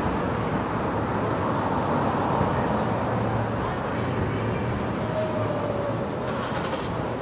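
Steady city street traffic noise: an even rumble of vehicles on the avenue, with a low engine hum that comes and goes.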